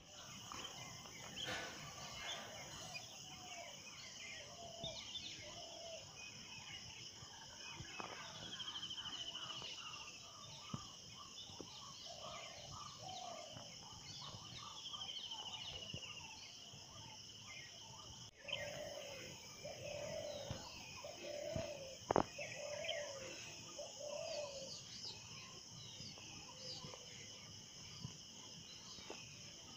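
Outdoor ambience: a steady high insect drone with birds calling throughout, including a short falling trill heard twice. A single sharp knock sounds about three-quarters of the way through.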